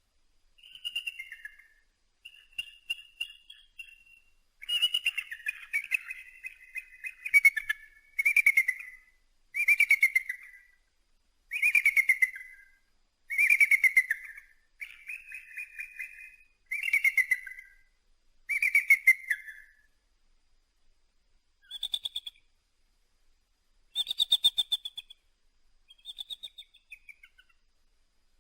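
Eagle calling: a series of high, piping calls, each with a fast stutter and falling off at the end, coming about every one and a half to two seconds. After a short pause, three higher, shorter calls come near the end.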